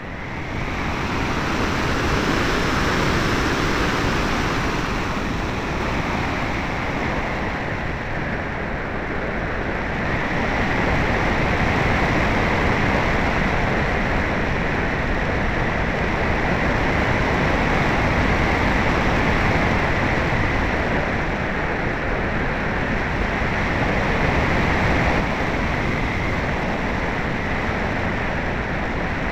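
Air rushing over the microphone of a keychain camera riding on a ParkZone Radian Pro RC glider in flight: a loud, steady rush that swells up about a second in and then holds.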